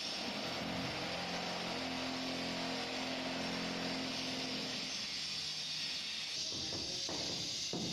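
Steady engine hum with a hiss, fading away after about five seconds.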